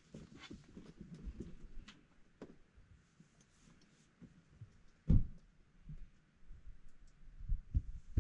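Scattered faint clicks and short low thumps, the loudest about five seconds in and a few more near the end.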